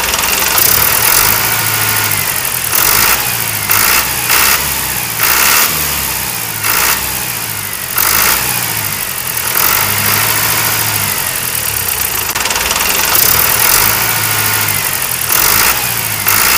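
Engine running, with its level surging and easing again every second or two.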